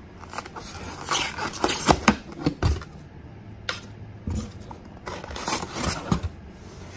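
Laser-cut acrylic printer-frame plates scraping and clacking against one another and the foam packing as they are lifted and shuffled in the box. The rustling comes in two stretches, about a second in and again about five seconds in.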